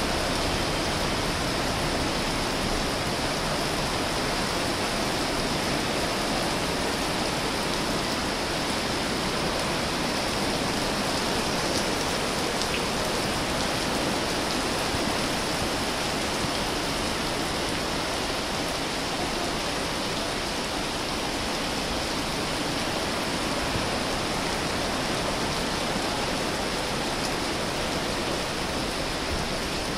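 Heavy rain pouring down on a street: a steady, even hiss that does not let up.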